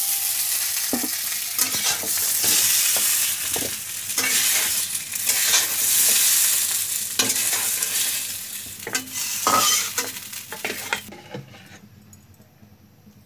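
Potato wedges frying in hot oil in a kadhai, sizzling, with a steel spatula scraping and knocking against the pan as they are turned and lifted out. The sizzle and clatter fade away near the end.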